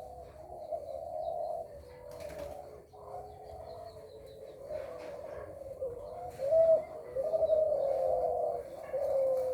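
Zebra dove (perkutut) cooing: a run of pitched, gliding coos, louder in the second half.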